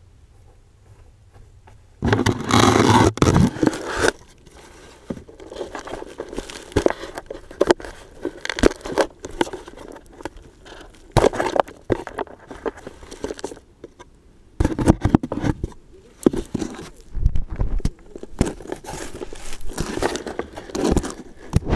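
Dry grass and stems rustling and crackling against a downed FPV drone's camera, in irregular bursts that start suddenly about two seconds in.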